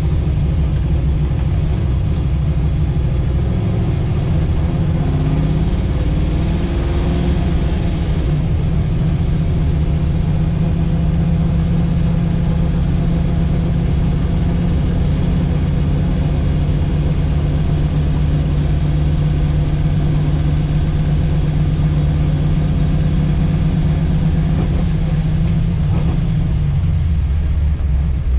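Chevrolet Nova's engine running under way, its pitch climbing a few seconds in, holding steady for most of the time, then dropping near the end.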